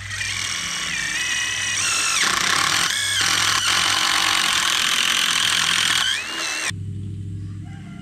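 Cordless drill boring a hole through a wooden block, its motor whining at high speed with the pitch dipping a few times as the bit bites into the wood. Near the end the drill winds down and stops.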